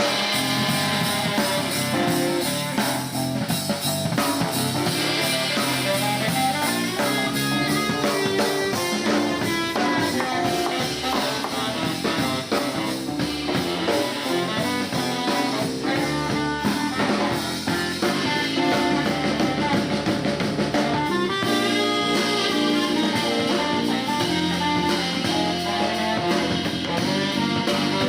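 Jazz band music playing, with drum kit and guitar.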